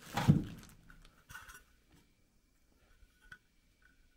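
Handling noise: a thump right at the start, then a few faint clicks and rubs as parts are handled.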